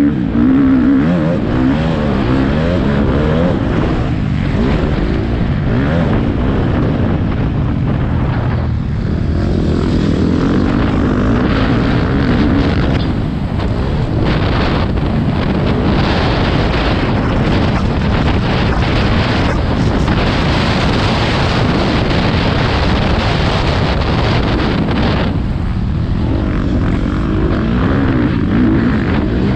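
Motocross bike engines racing, the pitch rising and falling with the throttle, over a heavy rumble of wind on the microphone.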